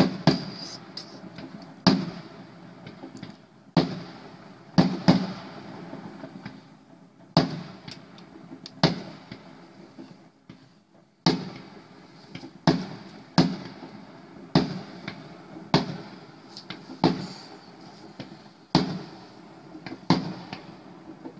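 Fireworks salute shells bursting in the sky, a string of sharp bangs each trailing off in an echo, coming about once a second with a pause of a couple of seconds about ten seconds in.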